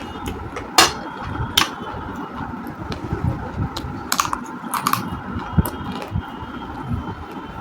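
Roasted clay being bitten and chewed close to the microphone: several sharp crunching snaps as pieces break, with steady grinding chewing between them.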